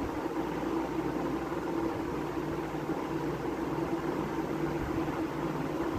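Steady mechanical hum and hiss, with a held low tone.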